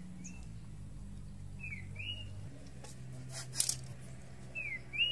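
Short high chirps from a small animal, in two quick pairs, each a falling note followed by a rising one, with a single earlier chirp near the start. A brief scraping rustle comes about halfway through, over a low steady hum.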